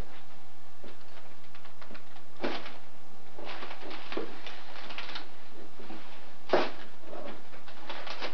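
Paper and a cardboard gift box being handled: irregular crinkling and rustling with scattered clicks, and a sharper knock about six and a half seconds in.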